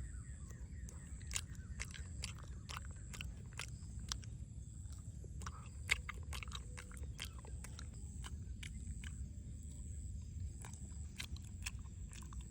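A run of small, irregular clicks and crunches over a low steady hum, with one sharper click about six seconds in.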